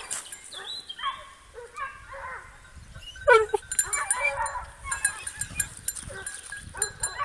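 A pack of Porcelaine hounds and a beagle giving tongue on wild boar, short overlapping bays and yelps from several dogs at once. One louder bay, falling in pitch, stands out about three seconds in.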